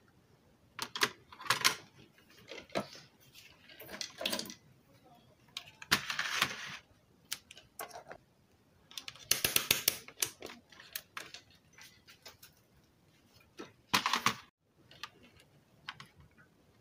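Irregular clicks, taps and clatter of small hand tools and a car stereo's front-panel circuit board being handled on a workbench, with a few longer scraping, clattering stretches about six, ten and fourteen seconds in.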